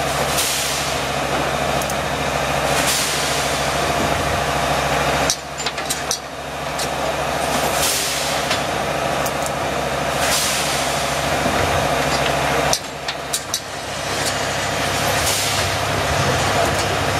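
Rotary stand-up pouch filling and capping machine running: a steady motor hum with a hiss of released compressed air about every two and a half seconds as its pneumatic cylinders cycle. There are a few sharp clacks, about five seconds in and near thirteen seconds.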